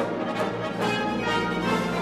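Orchestral music with brass playing held chords.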